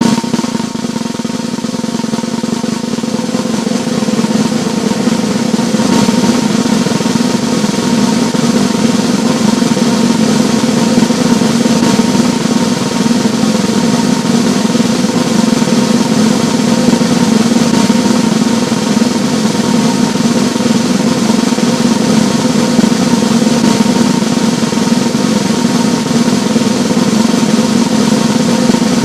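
A continuous drum roll that swells over the first few seconds and then holds steady and loud.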